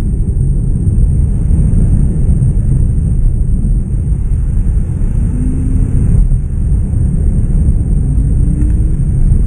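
Boston Whaler Outrage 240 motorboat underway through choppy sea: a loud, steady low rumble with no separate wave slams standing out.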